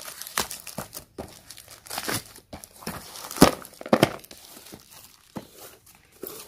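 Black plastic shipping mailer being torn open and crumpled by hand: irregular crinkling and ripping, loudest a little past the middle, thinning out near the end.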